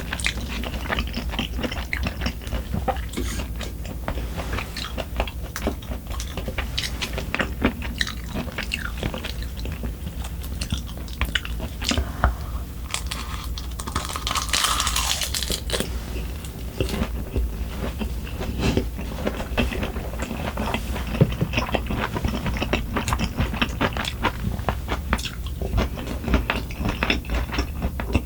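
A person chewing and crunching food close to the microphone, with irregular wet mouth clicks and crackles, and a brief hissing rustle near the middle.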